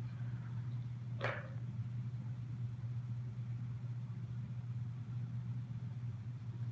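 A steady low hum, with one brief soft rustle about a second in.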